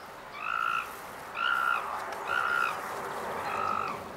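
Young chimpanzee screaming in a temper tantrum: four short, high calls, about one a second.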